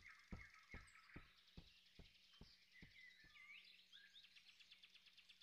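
Near silence: faint forest ambience with soft bird chirps. A row of faint, evenly spaced ticks, a little over two a second, dies away by about halfway through.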